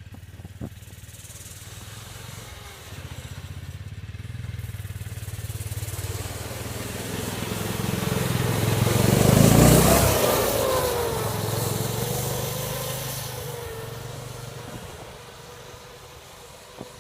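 Snowmobile engine approaching, passing close by about ten seconds in with a drop in pitch as it goes past, then fading into the distance.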